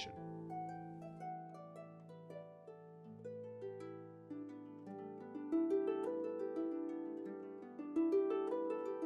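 Harp music: plucked notes ringing and overlapping, growing louder about five and a half seconds in.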